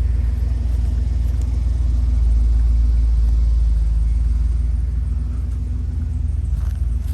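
Motorhome's onboard generator running with a steady low hum.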